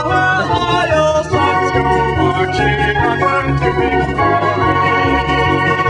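Organ playing a tune: held chords that change every second or so over a bass line.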